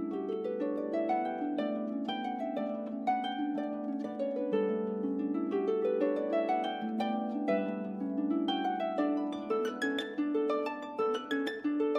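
Solo concert harp playing rising arpeggios whose plucked notes ring on over one another, turning near the end to separate, repeated plucked notes.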